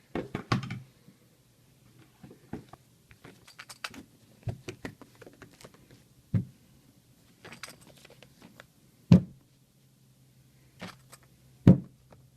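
Items being lifted out of a shipping box and set down on a hard surface: scattered light clicks and knocks, with four louder thuds spread through.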